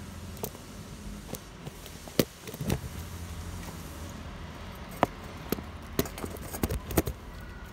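Scattered sharp clicks and crunches of gravel under feet and paws, with handling knocks as the phone is propped up, over a steady low rumble.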